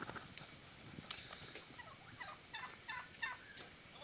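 A flock of turkeys calling: a quick, overlapping string of short, downward-sliding notes from several birds.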